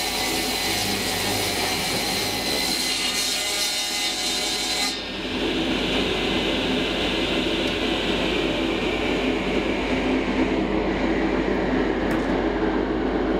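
Table saw running and cutting cherry boards: a steady machine drone with the blade's cutting hiss over it. About five seconds in the high hiss drops away and the machine runs on with a lower, steady drone.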